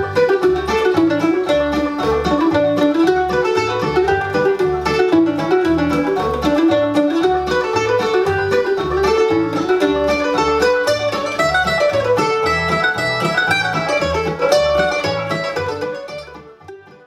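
Mandolin picking a melody over a steady bass line beneath, fading out near the end.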